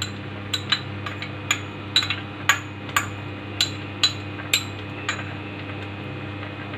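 Steel spoon clinking repeatedly against a small ceramic bowl as saffron-and-kevra water is scraped out into the pot, about two sharp ringing taps a second, stopping about five seconds in. A steady low hum runs underneath.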